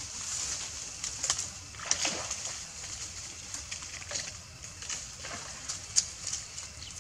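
Young macaques splashing and sloshing in shallow pond water, with a handful of short, sharp splashes scattered through and the sharpest about six seconds in, over a steady faint hiss.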